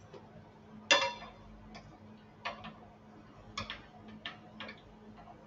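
Metal kitchen utensils clinking and tapping against cookware: one sharp ringing clink about a second in, then lighter clinks and taps every second or so.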